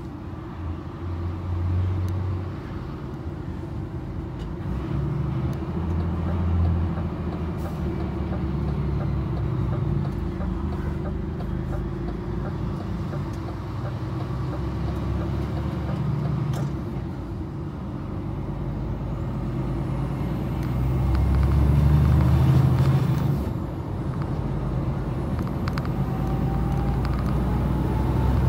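DAF XF 106 truck's PACCAR MX-13 diesel engine running on the road, with tyre and road noise. The engine note shifts now and then and swells to its loudest a little past two-thirds of the way through, then drops back.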